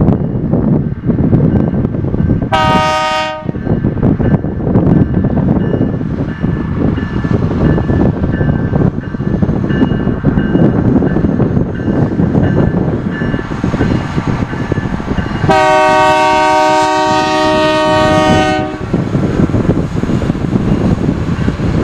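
Loram RG319 rail grinder train running past with a steady heavy rumble. Its horn sounds a short blast about three seconds in, then a long blast of about three seconds roughly two-thirds of the way through.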